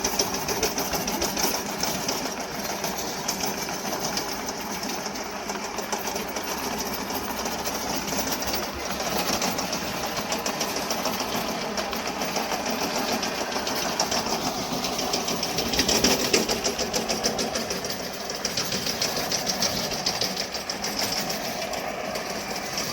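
Yamaha 7.5 hp petrol engine of a remote-control lawn mower running steadily with a fast, even beat, briefly louder about sixteen seconds in.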